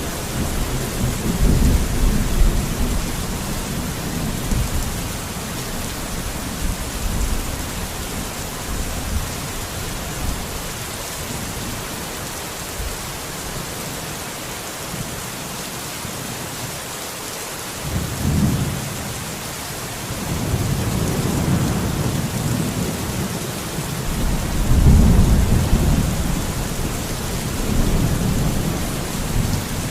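Steady heavy rain hissing throughout, with thunder rumbling low at the start, dying down in the middle, then a sudden rumble and a long rolling peal through the second half, loudest a few seconds before the end.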